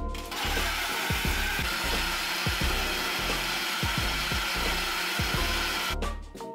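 Countertop blender motor running at speed, blending frozen blueberries and banana with juice into a smoothie. It starts just after the beginning and cuts off suddenly about six seconds in.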